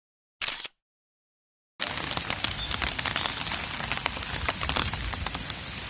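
Steady rain falling, with many small ticks of drops landing close by; it starts about two seconds in, after a brief clipped sound and a moment of silence.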